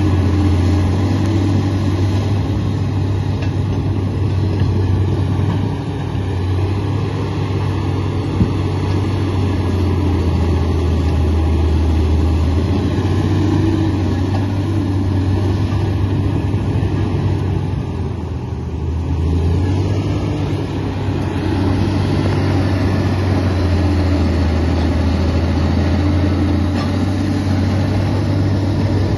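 Komatsu D85 bulldozer's diesel engine running under steady load with a continuous low drone, easing briefly about two-thirds of the way through before picking back up.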